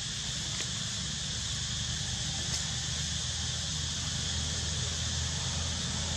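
Steady outdoor ambience: an even hiss with a constant high drone and a low rumble, broken only by a couple of faint clicks about half a second and two and a half seconds in.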